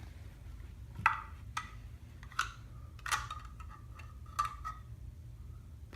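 About five sharp, uneven clicks and taps of a small plastic toy figure and its packaging being handled and opened.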